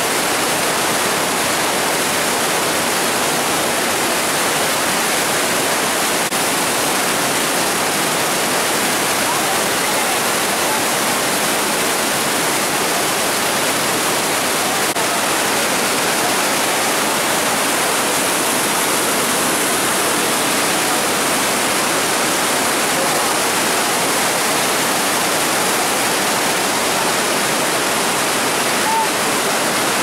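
The Rhine Falls at close range: a large waterfall's white water pouring over rocks, a loud, steady rushing noise with no let-up.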